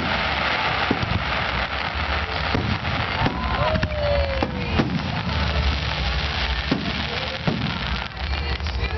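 Aerial fireworks shells bursting in quick succession, with low booms and a dense crackle of stars. A falling whistle sounds about halfway through.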